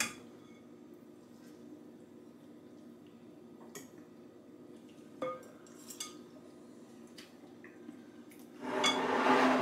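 Metal spoon and forks on ceramic dishes: a few light clinks against plates and a serving bowl of sauce, over a low steady hum. Near the end a louder, rougher scrape of about a second as the serving spoon is dragged through the sauce in the bowl.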